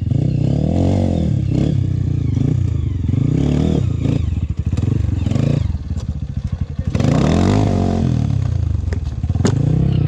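Dirt bike engine revved again and again in rising and falling swells, with the hardest rev about seven seconds in, as the bike is worked up and over a railway rail. A few sharp clanks come through along the way.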